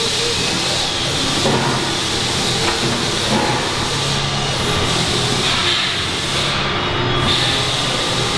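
Steady, loud hissing background noise of a large vehicle service bay.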